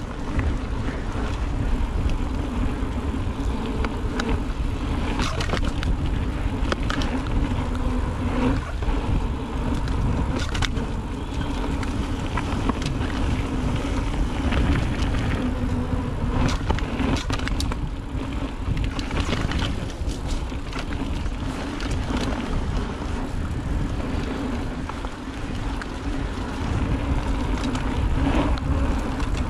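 Mountain bike rolling down a dirt trail: a steady rumble of tyres on dirt and wind on the microphone, with frequent clicks and rattles as the bike goes over bumps and rocks.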